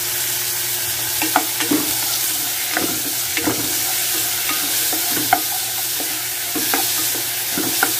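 Onion, tomato and green chili sizzling in hot oil in a small saucepan with a steady hiss, while a spatula stirs them, scraping and knocking against the pan every second or so.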